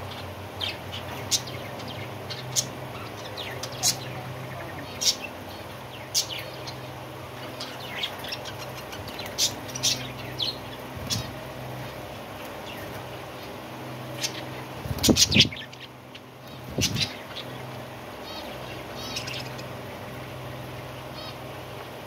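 Budgerigars chirping in an aviary: short, high chirps about once a second over a steady low background hum. A louder burst of sharp sounds comes about fifteen seconds in, with another shortly after.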